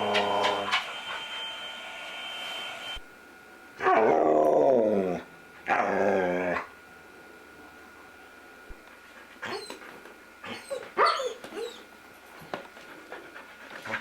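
Dog making drawn-out, howl-like 'talking' vocalizations: a call at the start, a longer call about four seconds in that falls in pitch, and another about six seconds in. A few short, quieter sounds follow near the ten-second mark.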